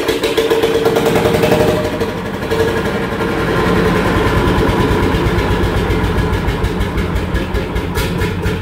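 1938 Lanz Bulldog's single-cylinder two-stroke hot-bulb engine catching and running, with a fast, even beat of exhaust pulses.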